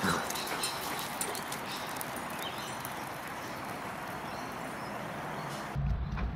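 Steady outdoor background hiss with faint scattered clicks. Near the end a low rumble suddenly sets in on the microphone and the hiss drops away.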